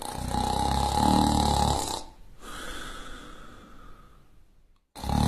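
A person snoring: a loud, low snore lasting about two seconds, then a softer breathy out-breath that fades away, and the next snore starting near the end.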